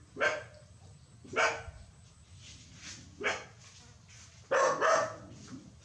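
An animal giving short, sharp barks, five of them a second or two apart, the last two close together near the end.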